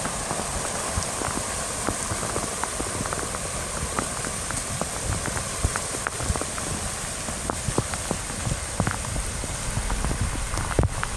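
Heavy tropical-storm rain falling steadily, with many separate drops ticking close by.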